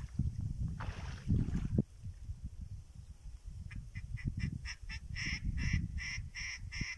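A live decoy hen duck calling a run of about a dozen short quacks, starting about three and a half seconds in and growing louder. Before that there is a splash of water from wading, with wind rumbling on the microphone.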